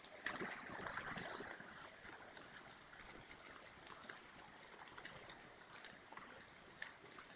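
Muddy floodwater running over stones and gravel: a steady rushing hiss with small crackles, louder for the first second or two.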